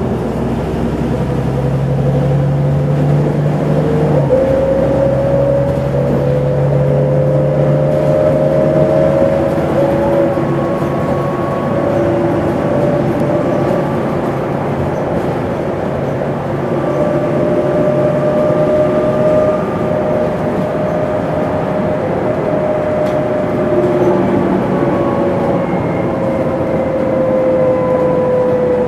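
MAN Lion's City CNG city bus heard from on board: the natural-gas engine and ZF automatic gearbox running under way, with whining tones that slowly rise and fall in pitch as the bus speeds up and slows. The pitch steps about four seconds in, as the gearbox shifts.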